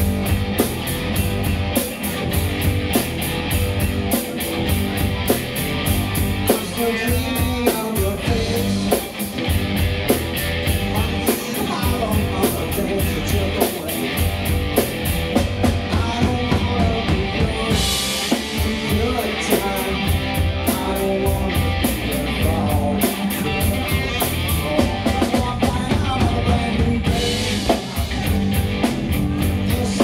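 Live rock band playing a song: a drum kit keeps a steady beat under guitar.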